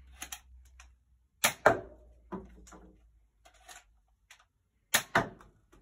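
Nerf Alpha Strike Wolf LR-1 spring blaster being reloaded and fired twice, about three and a half seconds apart. Small plastic clicks and rattles from loading a dart and working the priming handle lead up to each shot. Each shot is a loud, sharp double snap.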